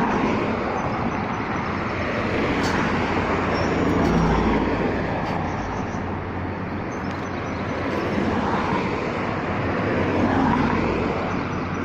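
Buses and road traffic in a bus station: a steady low engine hum over general traffic noise, swelling louder about four seconds in and again near the end as vehicles move past.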